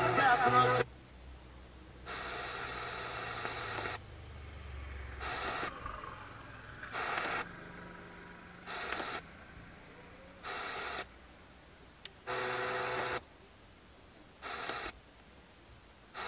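Pioneer car stereo scanning down the AM medium-wave band: music cuts off about a second in, then short bursts of static and weak station audio come every second or two as it steps from channel to channel, with the sound muted in between.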